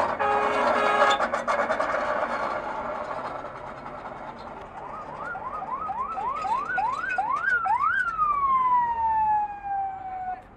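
Siren-like wail: a run of short rising whoops, about three a second, each starting higher than the last, ending in one long falling glide that fades away.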